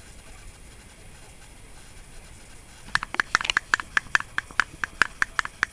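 A rapid, regular run of short high chirps from a small animal, about five a second, starting about three seconds in.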